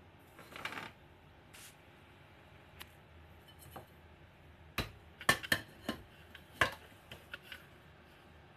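Rice cooker's inner pot being handled and set into the cooker, with a soft scrape near the start. Then a quick run of sharp clicks and knocks as the lid is shut and latched.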